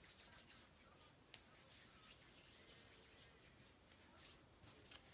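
Faint rubbing of hands together, palm against palm, working in alcohol hand sanitizer until the skin is dry.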